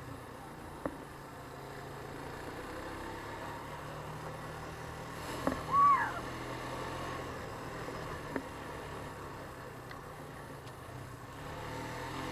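ATV engine running steadily while riding a dirt trail, with a couple of brief knocks from the ride and a short, loud high-pitched sound that rises and falls about six seconds in.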